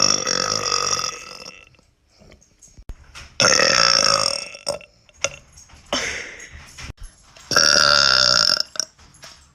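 A woman burping: three long burps of a second or more each, the first already under way at the start, the second about three and a half seconds in and the third near the end, with a shorter, weaker one between the second and third.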